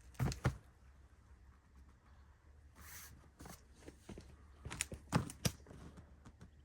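Mallet knocking on a hub motor axle and spacer seated in a bicycle's rear dropout: two quick knocks at the start and a cluster of three or four about five seconds in, tapping the axle down to close a gap at the dropout.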